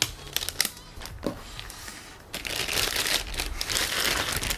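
Plastic packaging rustling and crinkling as a new motorcycle front fork is handled during unboxing, with a few light clicks and knocks in the first half.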